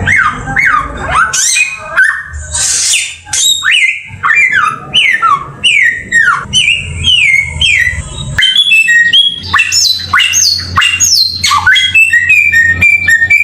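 A songbird singing a fast, varied song of short falling whistles mixed with harsher squawking notes. Near the end it settles into evenly repeated two-step phrases. A low hum sits underneath.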